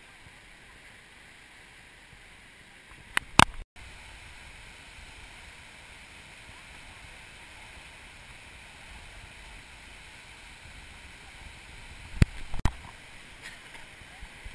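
Steady rush of a rocky jungle stream and waterfall, with sharp knocks about three seconds in and twice more around twelve seconds.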